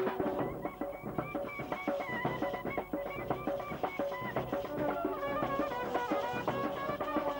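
Upbeat traditional Indian band music: a stepping melody line over a steady, dense drum beat.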